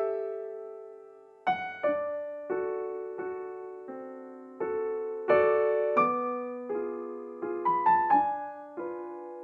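Slow, gentle solo piano music: single notes and chords struck about once a second, each left to ring and fade.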